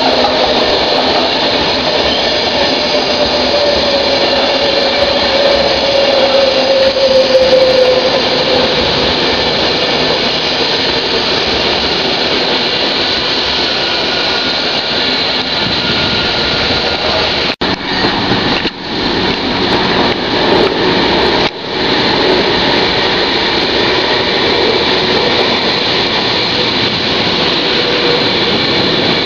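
Virgin Class 390 Pendolino electric train passing close by: a loud, continuous rush of wheel and air noise, with a tone that falls slightly over the first several seconds. The sound drops out briefly three times past the middle.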